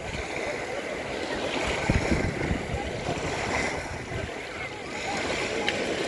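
Seaside ambience: wind buffeting the microphone over small lapping waves, with faint distant voices.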